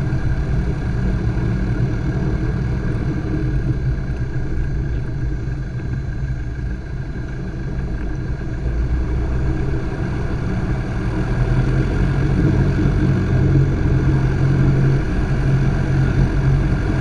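Piston engine and propeller of a Robin light aircraft running steadily, heard from on board, growing a little louder about two-thirds of the way through.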